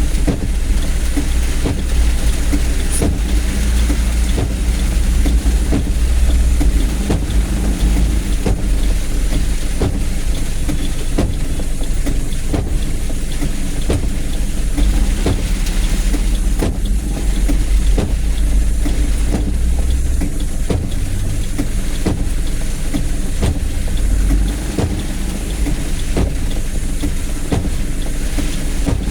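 Low, steady rumble of a vehicle driving in heavy rain, with a constant hiss and many scattered sharp ticks; the rumble eases a little about 24 seconds in.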